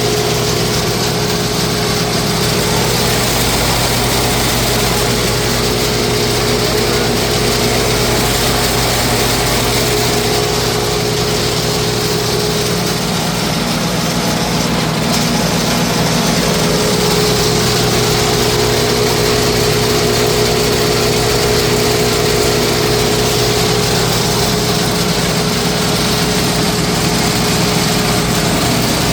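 Crary Bearcat CH611DH diesel wood chipper running steadily at full throttle, its engine and chipper drum at full speed with no wood being chipped.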